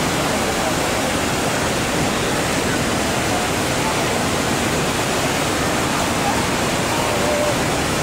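Loud, steady rush of the Rhine Falls, a large river waterfall, heard close up from the churning water at its foot.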